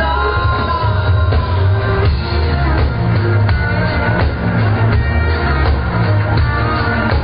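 Rock band playing live to an amphitheatre crowd: a singer over pulsing bass and drums, with a sung line gliding near the start.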